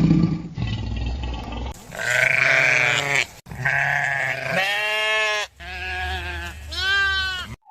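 A low rumbling animal call for the first second and a half, then livestock bleating about five times in quick succession, each bleat arching up and down in pitch.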